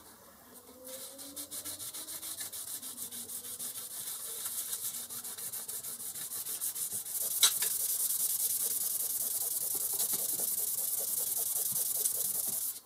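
Small aluminium plate rubbed by hand on wet abrasive paper: a hissing scrape of wet sanding in rapid back-and-forth strokes. It grows louder about seven seconds in and stops suddenly near the end.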